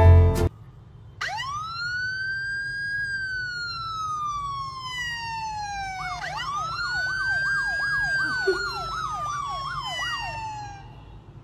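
Police-style siren sound played from a smartphone: one long wail that rises and then slowly falls, followed by a second wail with a fast up-and-down yelp warbling over it, which stops shortly before the end.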